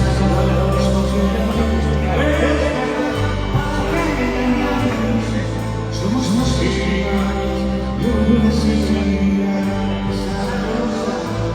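Pop-rock band playing live in an instrumental passage: bass holding long notes that change every second or two under a wavering melody line.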